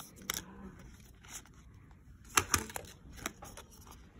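Flat paperboard packaging boxes being handled: card rustling and snapping as one is drawn from a stack and folded along its creases, with two sharp snaps close together a little past halfway.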